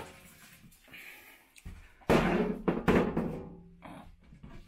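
A lid being handled: a small knock, then a loud thunk about two seconds in that rings on for more than a second, with another knock in the middle of it.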